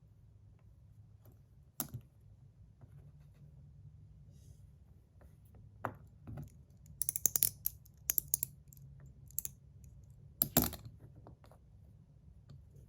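Small metal parts of a mechanical fidget slider clicking and tapping as it is handled and its springs are taken out: scattered light clicks, a quick run of clicks past the middle, and a sharper click near the end.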